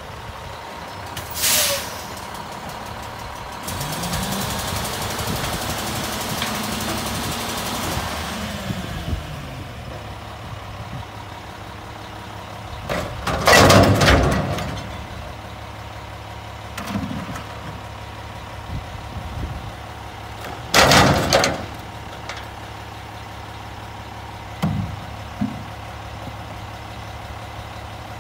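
Front-loader garbage truck's diesel engine idling, with a short air hiss and then a few seconds of hiss while the engine revs up and settles back. Recycling is tipped from plastic tubs into the truck's carry can twice, each time a loud clatter, followed near the end by two short knocks of the emptied tubs.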